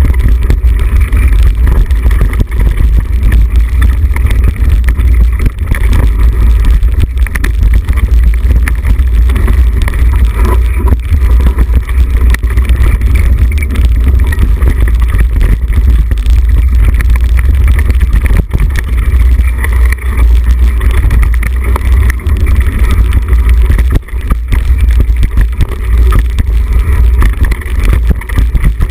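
Loud, steady wind rumble buffeting the microphone of a camera mounted on a mountain bike as it rides down a rough, muddy trail, with constant small knocks and rattles from the bike jolting over the ground.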